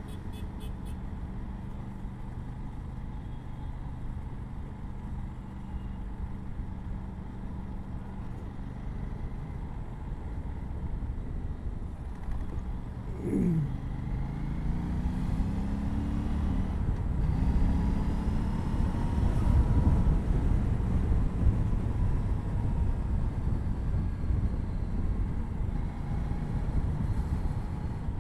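Aprilia RS 457's parallel-twin engine through its stock exhaust, first running steadily at low revs. About halfway through, the revs drop sharply, then climb again twice as the bike accelerates through the gears, with rushing air getting louder as speed builds.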